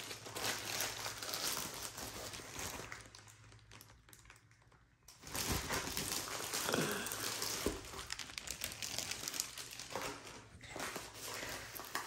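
Thin clear plastic sleeve crinkling and rustling as a rolled diamond-painting canvas is slid out of it and handled. The rustling dies down for a couple of seconds in the middle, then picks up again with a few soft knocks.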